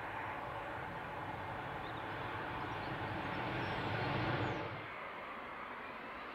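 Jet engines of an Airbus A380 running as the airliner rolls along the runway: a steady jet noise with a low rumble that swells about four seconds in. About five seconds in it cuts off abruptly to the quieter jet sound of a Boeing 787 on final approach.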